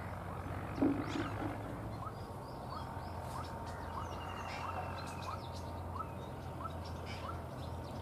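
Open-field ambience: a steady low engine hum from distant machinery or traffic, with a short rising bird call repeated just under twice a second through the middle of the stretch, and a brief louder call about a second in.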